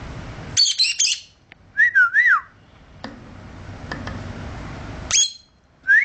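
Peach-faced lovebird calling: a burst of shrill, piercing chirps about half a second in, a short wavering whistle around two seconds, and another sharp shriek just after five seconds, with a few faint clicks in between.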